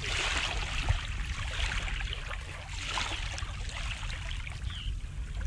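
Small sea waves lapping and washing up a coarse sand and pebble beach, the hiss of the wash swelling and easing every second or so over a steady low rumble.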